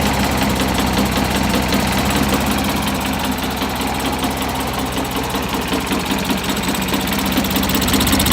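Small lawn mower engine running steadily on a GEET fuel reactor in place of a carburettor, burning a mix of mostly water with a little gasoline and oil. It runs rough but keeps going, dipping slightly in the middle and picking back up near the end.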